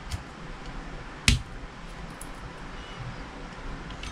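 A single sharp tap of a hammer driving a pin into an airsoft M9 pistol's frame, about a second in, with a faint tick just before.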